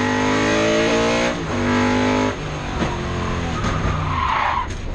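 Race car engine heard from inside the caged cockpit, running hard at first, then dropping in pitch and loudness in two steps about a second and two seconds in, and settling on a lower note. A short hiss rises and falls near the end.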